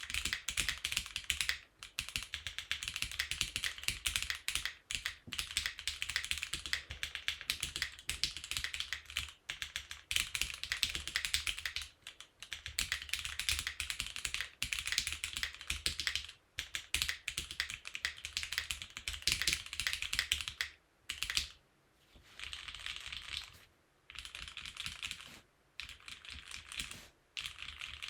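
Steady typing on a Monsgeek M1 mechanical keyboard with stock Gateron Pro Yellow linear switches and GMK keycaps. The case has no foam inside, only the Forcebreak mod, and the stabilisers are lubed. The keystrokes run as dense trains of clacks with a few brief pauses, and in the last several seconds they come in shorter, slightly softer bursts with short gaps between them.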